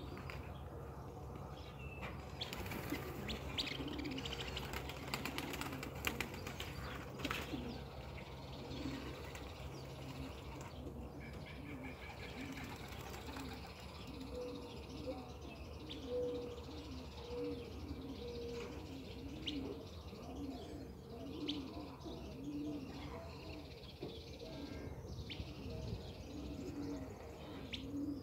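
Racing pigeons cooing over and over in low, repeated notes. From about two to eight seconds in there are bursts of wing flapping and clapping.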